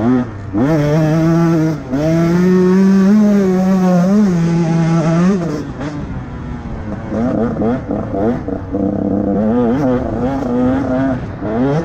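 Motocross bike engine at racing revs: the note climbs steeply about half a second in and holds high for several seconds with brief dips, falls back at about five and a half seconds, then rises and falls repeatedly as the throttle is worked.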